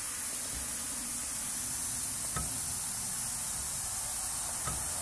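Steady high-pitched hiss with two faint knocks, one about halfway through and one near the end.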